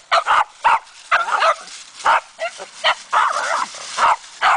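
Boston terrier barking repeatedly, short barks coming about two to three a second.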